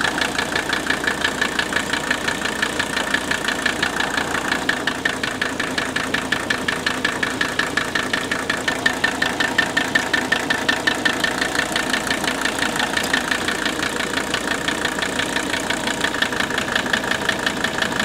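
Mercedes-Benz 300TD's OM617 five-cylinder diesel idling with a steady, even knock. The knock does not change as single injector lines are cracked loose, so it cannot be traced to one cylinder's injector.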